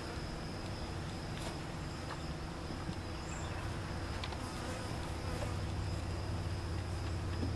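A mass of honey bees from the opened package buzzing in a steady, even hum around the hive. The hum grows slightly louder about two-thirds of the way in.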